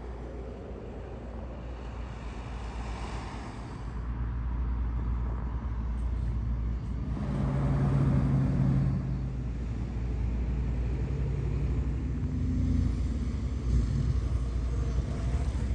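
Road traffic passing on a multi-lane road: engines and tyres making a steady low rumble that grows louder about four seconds in. A passing vehicle's engine hum stands out around the middle and again near the end.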